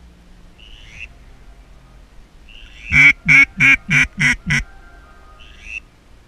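A hen-mallard-style series of six loud quacks, about three a second, each a little softer than the one before: the descending calling used to bring mallards in, most likely blown on a duck call.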